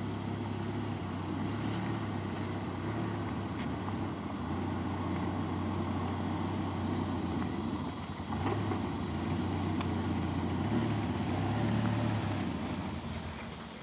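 Side-by-side utility vehicle's engine running at low speed as it creeps along, a steady low drone that fades away near the end.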